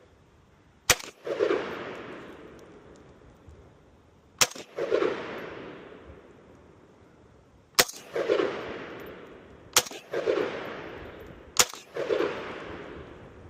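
AK rifle firing five single shots at irregular intervals, each crack followed by a rolling echo that fades over about a second.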